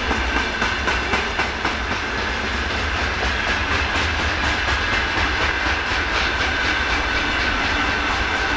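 Freight container wagons rolling past: a steady rumble of wheels on rail with repeated clicks over the rail joints and a steady high ringing tone.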